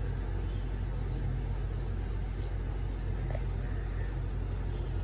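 Steady low hum of room noise, with a few faint clicks and mouth sounds of someone eating noodles with a fork from a plastic bowl.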